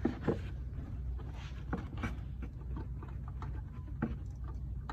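Light irregular clicks and scrapes of hands working a plastic wiring connector, pushing the plug for the golf cart controller cover into place, over a steady low hum.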